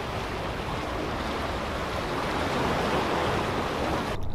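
Ocean surf washing against rocks, a steady rush that swells and eases; it cuts off suddenly near the end.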